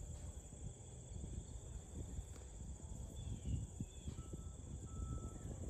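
Crickets chirping steadily at a high pitch over a low, uneven rumble.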